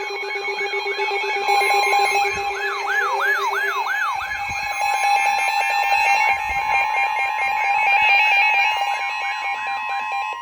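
Many electronic alarm and siren tones layered at once: rising-and-falling siren sweeps repeating about three times a second over several steady tones and rapid beeping. The whole mix cuts off suddenly at the end.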